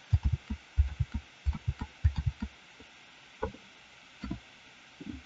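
Computer keyboard keys being pressed again and again for repeated undo (Ctrl+Z), heard as dull thumps. About a dozen come in quick succession over the first two and a half seconds, then a few single ones.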